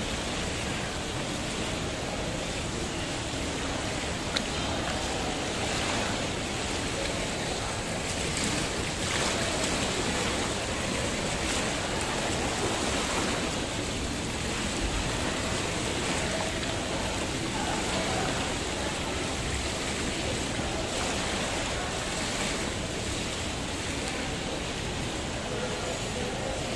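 Steady rush of churning, bubbling water in a jacuzzi pool, its jets running.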